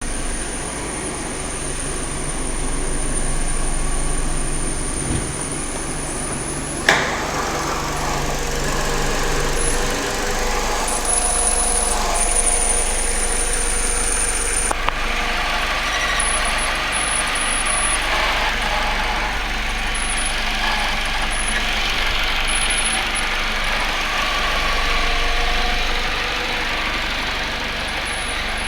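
Citroën C4 sedan with its engine running and a thin, high-pitched whistle over it, an unexplained whistle whose source is being sought. The whistle holds steady for about the first seven seconds, then comes and goes; a single sharp click about seven seconds in.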